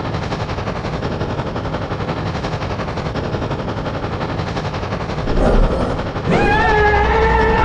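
Freight train sound effect: a rapid, even chugging clatter of a train running. About five seconds in a short whistle blast sounds, then about a second later a loud whistle sounds a held chord of several tones over the running train.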